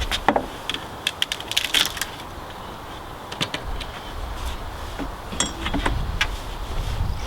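Scattered sharp metallic clinks and wooden knocks, a few with a brief ring, as a steel pallet buster bar works boards and nails off a wooden pallet, over a low rumble.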